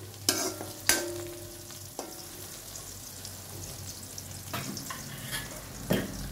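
Sliced onions sizzling in oil in a black iron wok, stirred with a metal spoon. Several sharp metallic clinks come over the sizzle, the one about a second in ringing briefly.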